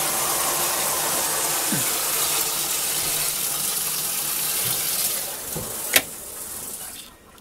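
Water pouring into the tub of an old Maytag top-load washer as it fills, a steady rushing hiss that drops away about five seconds in. A single sharp click follows about a second later.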